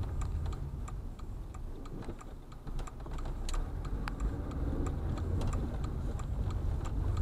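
Car turn-signal indicator clicking steadily, about three ticks a second, over the low rumble of the car's engine heard inside the cabin, as the car pulls away from a stop sign and turns.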